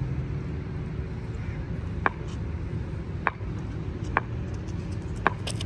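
Steady low background rumble with four sharp knocks, the first about two seconds in and the rest roughly a second apart.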